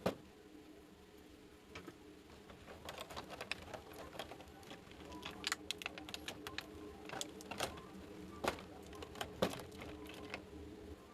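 Small plastic toy pieces being handled: irregular light clicks and taps, busier in the middle, with a few sharper clacks in the last few seconds.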